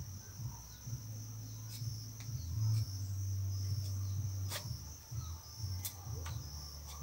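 Knife cutting a wedge into a jambo (rose apple) scion for a cleft graft, heard as a few light clicks, over a steady high insect chirr and a low hum.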